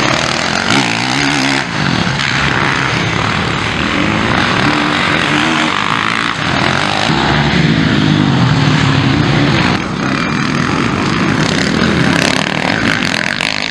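Motocross dirt bike engines revving hard, their pitch rising and falling again and again as the bikes accelerate and shift through the turns.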